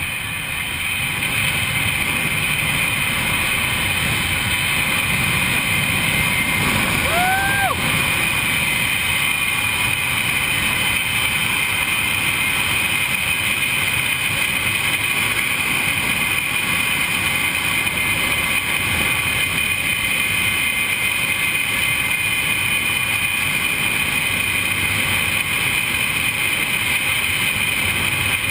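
Zip line trolley running fast along the steel cable, a steady whirring with a high hum, mixed with wind rushing over the microphone. A single short whoop from the rider about seven seconds in.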